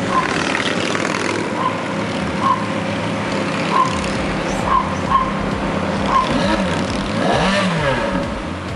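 Ferrari's mid-mounted V8 idling steadily at a standstill, with a brief rise and fall in pitch near the end. Short sharp yaps, like a small dog barking, come every second or so and are the loudest sounds.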